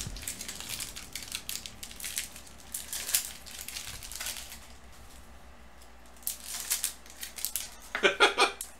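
Trading cards being handled and sorted on a table: soft rustling and light ticks of card edges sliding and being set down, easing off for a moment in the middle before picking up again.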